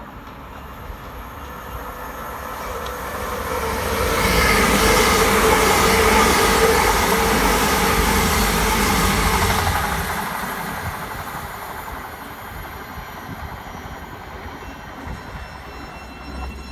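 Two coupled Great Northern Class 387 electric multiple units running through the station without stopping. A rising rush of wheel and traction noise builds over a few seconds and stays loud for about six seconds as the coaches pass close by, with a steady whine in it. It then fades to a low rumble.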